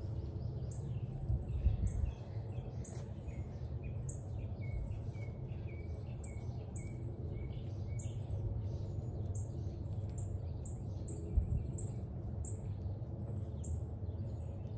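A bird chirping over and over, about two short calls a second, over a steady low background rumble. A dull thump sounds just under two seconds in and another past eleven seconds.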